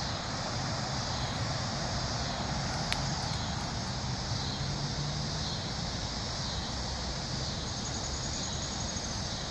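Steady background drone of distant rush-hour traffic, with a low hum swelling in and fading in the middle, under the high, continuous buzzing of cicadas. A single sharp click comes about three seconds in.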